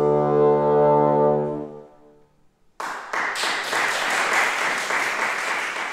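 The closing chord of a baroque bassoon ensemble (four bassoons and contrabassoon with harpsichord) is held and dies away about two seconds in. After a brief silence the audience breaks into applause.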